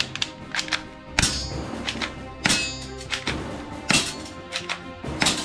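Sharp plastic-and-metal clacks and clicks of a toy pistol being handled and worked: four louder clacks about a second and a half apart, with smaller clicks between, over background music.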